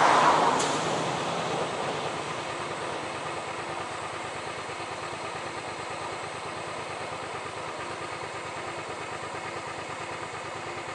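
Suzuki SV400S V-twin engine idling steadily with an even low pulse while the bike is stopped in traffic. At the start, the rush of a passing train and car fades away over about two seconds.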